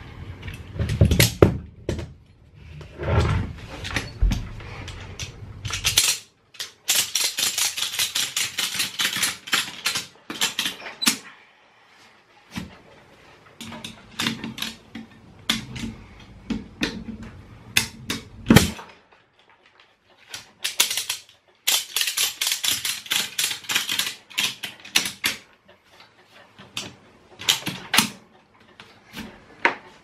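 Ratchet strap buckle being cranked to tighten the polyester webbing: its pawl clicks rapidly in two long runs, with knocks of metal hooks and hardware being handled and one sharp knock about two-thirds of the way through.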